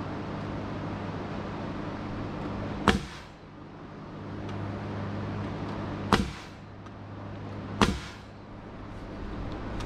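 Pneumatic framing nailer firing three times, at about 3, 6 and 8 seconds, each a sharp bang as it drives a nail into 2x8 framing lumber. A steady low machine hum runs underneath.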